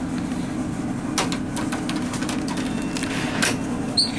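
Steady low mechanical hum with a few faint clicks, and a short high electronic ding near the end, typical of an elevator's arrival chime.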